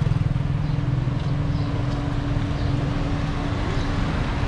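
A motor vehicle engine running steadily, with a low rumble and a constant hum.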